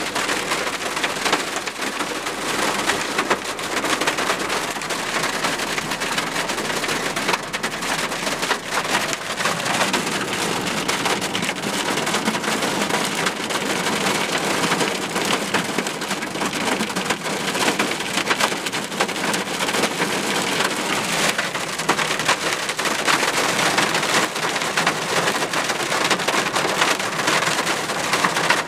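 Hail and heavy rain pelting a truck's roof and glass, heard from inside the cab: a dense, steady clatter of many small hits.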